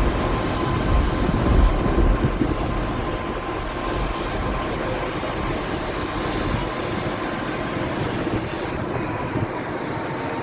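High-pressure water jetting on 4-inch pipes (aqua milling): a steady rushing noise over a low rumble, with a thin constant tone.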